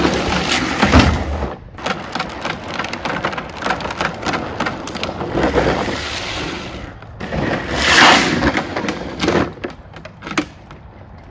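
Green Machine drift trike's hard wheels rolling and skidding over rough asphalt, a gritty grinding rumble with rattles and clicks that swells and fades as it is ridden and turned hard, loudest a little past the middle.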